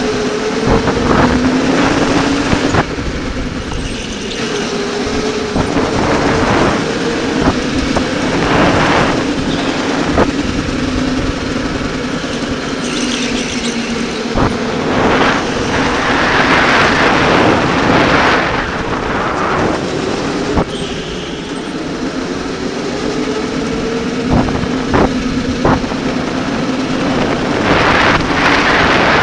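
Electric go-kart motor whining as the kart laps the track, its pitch rising and falling with speed through the corners. A rushing noise swells and fades several times over it.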